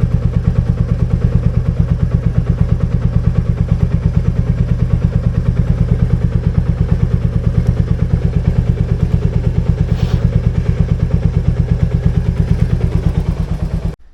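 Royal Enfield Meteor 350 single-cylinder engine running steadily, with an even rapid beat, then cutting off abruptly near the end.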